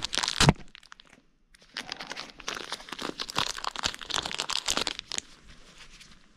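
Plastic wrapper of a new sealed bearing crinkling as it is opened by hand, with a sharp crackle about half a second in, then a longer stretch of crinkling from about two to five seconds.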